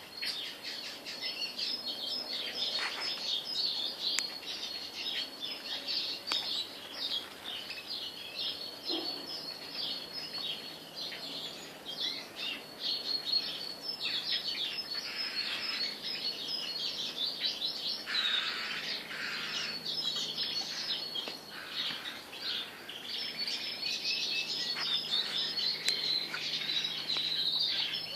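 Many small aviary birds chirping and twittering together: a dense, unbroken chatter of short, high chirps.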